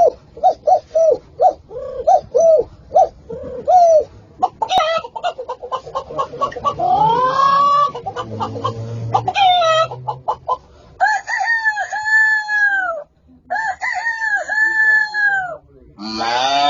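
Farmyard chicken sounds made as animal sound effects, likely a person's vocal imitation: a hen clucking in short repeated calls at about two a second, a quicker run of clucks, then a rooster crowing twice in long drawn-out calls. Another long call starts near the end.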